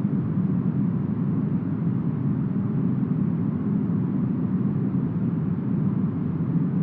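Steady, smoothed brown noise styled as deep forest wind: an even, deep rush with its weight low down and almost nothing in the highs.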